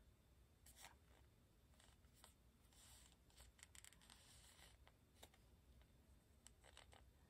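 Faint rustling and scattered light clicks of paper being handled, like the pages of an instruction booklet being turned and looked through.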